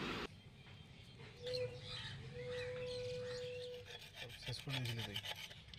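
Faint rubbing and handling sounds as hands wipe a rotavator bearing housing with a cloth and work grease into a roller bearing. A faint steady tone sounds in the background for about two seconds in the middle.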